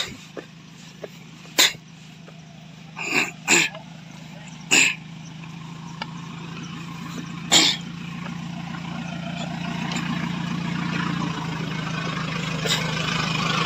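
Off-road Jeep's engine running steadily, growing louder as it is approached. Over it come about five short, sharp huffs of breath from someone panting while walking uphill, between about one and eight seconds in.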